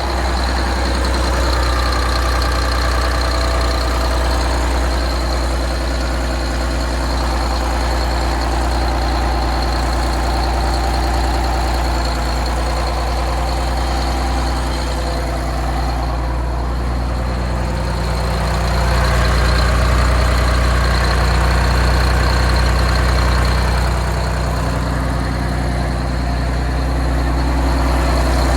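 Detroit Diesel 6V92 two-stroke V6 diesel idling steadily just after starting warm, with a freshly fitted exhaust manifold gasket meant to cure its exhaust leak.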